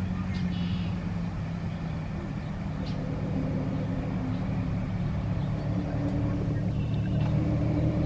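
Steady low hum of an engine running at idle. A few short high-pitched calls sound over it: one about half a second in, one around three seconds, and one near the end.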